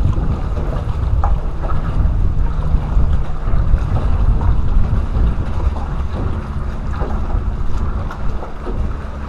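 Wind buffeting the microphone in a steady low rumble, with choppy lake water lapping at a jon boat's hull.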